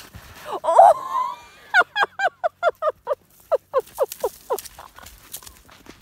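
Baby rhino calling: a louder squeal about a second in, then a run of short, high squeaky calls, about four a second, each falling in pitch.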